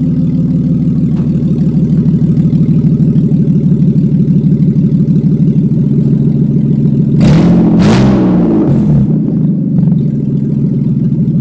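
BMW E36 323i Touring's 2.5-litre M52 straight-six idling steadily, with a burst of noise and a quick rise and fall in revs about seven seconds in.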